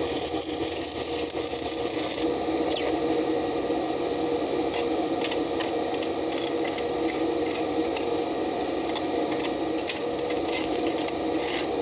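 Stick (arc) welding: a steady frying crackle of the electrode arc, with many sharp pops and snaps, over a faint steady hum.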